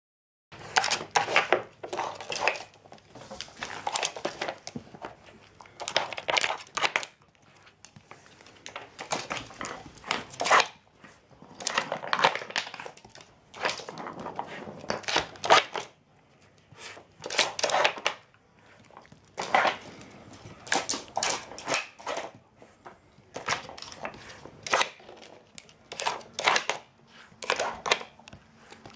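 Dog working a wooden treat puzzle, pawing and nosing at its sliding covers: repeated bursts of clattering, knocking and scraping of the wooden pieces, every second or two.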